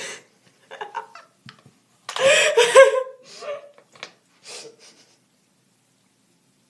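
Giggling laughter in short bursts, loudest about two seconds in, then fading into a few soft breaths of laughter.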